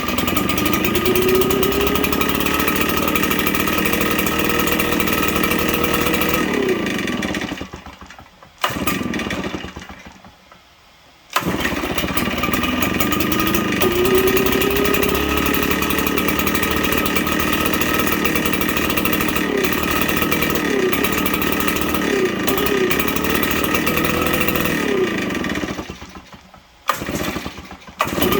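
RedMax leaf blower's two-stroke engine running on fuel poured straight into the carburetor, its speed rising and falling. It dies away twice and starts up again each time.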